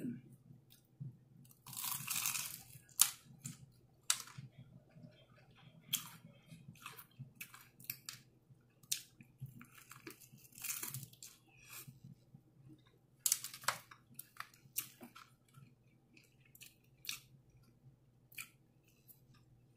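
Close-up eating sounds: biting and chewing crispy KFC fried chicken, with sharp, irregular crunches of the breaded skin. The loudest crunching comes about two seconds in and again a little past the middle.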